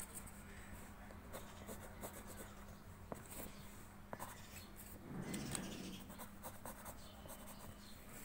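Pencil scratching on paper in short, quick hatching strokes as a drawing is shaded, with a louder rustle of hand or paper about five seconds in. A faint steady hum runs underneath.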